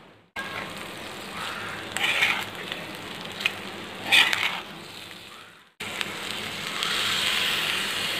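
Egg fried rice sizzling in a hot pan while a spoon stirs and scrapes through it, with two sharper scrapes about two and four seconds in. The sound breaks off abruptly twice and resumes as a steadier sizzle.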